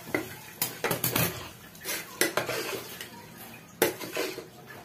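Steel cookware clattering on a gas stove: tongs, a ladle and steel pots clinking and knocking together as the dal's tempering is finished. A handful of separate knocks, the sharpest a little before the end.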